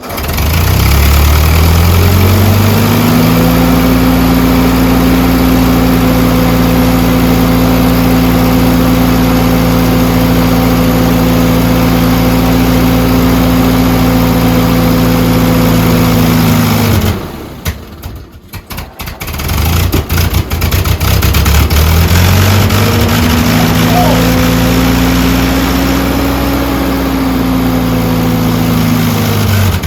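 Ford 9N tractor's four-cylinder flathead engine, cold-started in freezing weather. It picks up speed over a few seconds and runs steadily, then dies away about 17 seconds in. About three seconds later it picks up speed again and runs steadily once more.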